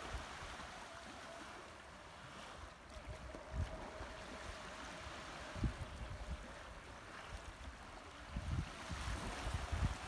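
Seaside ambience: a steady wash of small waves at the shore, with wind buffeting the microphone in gusts, more so near the end.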